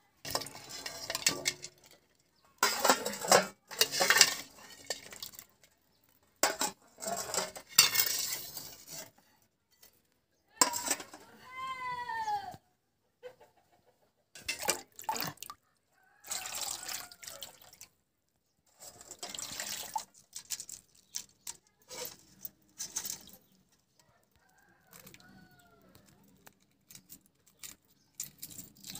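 Water splashing in short bursts as boiled eggs are handled in a metal pan of water and peeled. A rooster crows once, about two seconds long, just before the middle, and hens cluck faintly later on.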